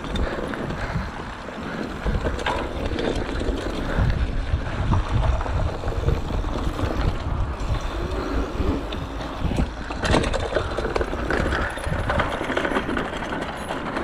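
Mountain bike being ridden over rough dirt and then a rubber playground surface: continuous rattling and clicking of the bike's chain and parts over bumps, with tyre noise and a heavy rumble of wind on the microphone.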